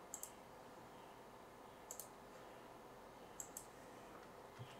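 A few faint computer mouse clicks, some in quick pairs, spaced a second or two apart over near-silent room tone.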